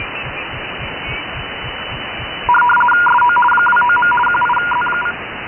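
Shortwave SSB receiver on the 20 m band giving steady band hiss with light crackles. About two and a half seconds in, a louder data signal warbles rapidly between two tones for about two and a half seconds, then stops, leaving the hiss.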